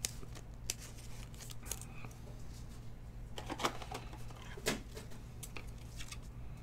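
Scattered soft clicks and rustles of plastic trading-card sleeves and a rigid plastic top loader being handled, over a low steady hum.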